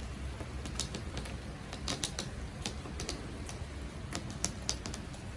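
Raindrops dripping, landing as irregular sharp ticks a few times a second, over a low steady rumble.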